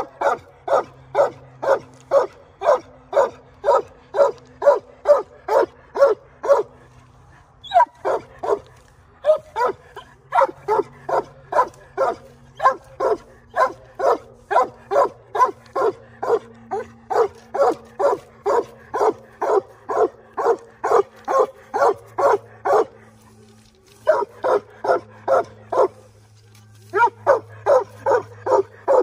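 Young coonhounds, a redbone and a black and tan, barking treed at a raccoon: a run of short chop barks, two to three a second, broken by brief pauses about eight, twenty-three and twenty-six seconds in.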